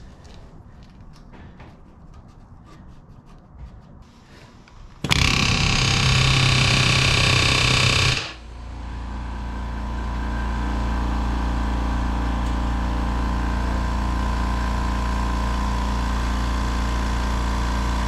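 A power tool in the workshop runs loudly for about three seconds and stops. Then a steady motor hum starts, builds over a couple of seconds and holds.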